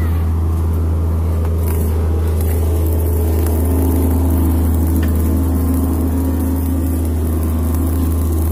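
Steady, loud low drone of running machinery, with an angle grinder cutting into a steel pipe fitting, its steady whine strongest in the middle stretch.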